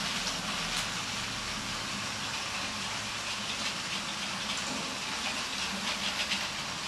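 Toy electric trains running on plastic track: a steady whirring hiss of motors and wheels on the rails, with light clicking about two-thirds of the way through.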